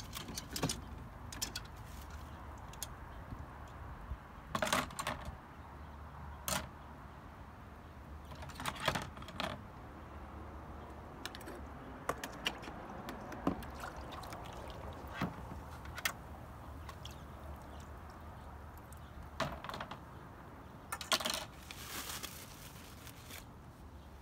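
Plastic cling wrap crinkling and rustling as it is peeled back from a tub of liquid, with scattered clicks and knocks of wet plastic computer case parts being handled, over a steady low rumble.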